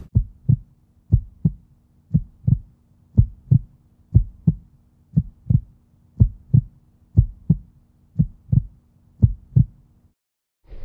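Heartbeat sound effect: a pair of low thumps about once a second, ten beats in all, over a faint steady hum. It stops abruptly shortly before the end.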